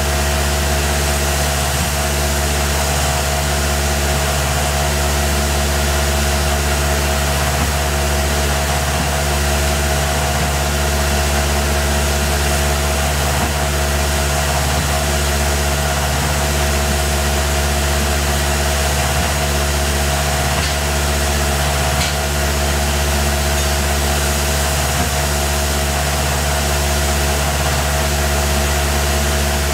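Tormach PCNC 1100 CNC mill running steadily as a small end mill machines a 4140 steel muzzle brake on the fourth axis: a constant machine hum with a steady pitched tone and an even hiss, level throughout.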